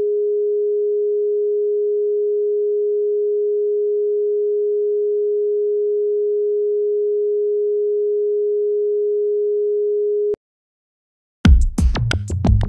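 A steady, mid-pitched pure electronic sine tone holds for about ten seconds and cuts off suddenly. After a second of silence, electronic pop music with a regular beat starts near the end.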